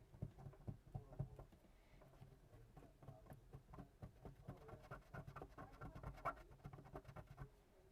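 Faint, irregular scratching and light tapping of a small hand tool scrubbing dirt and old glue off a smartphone's frame, busiest in the second half.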